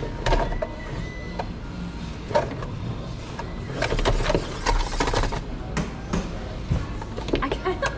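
Small electric RC rock crawlers (1/18-scale Traxxas TRX-4Ms) whirring as they drive, with scattered knocks and clatter from the trucks climbing over rock.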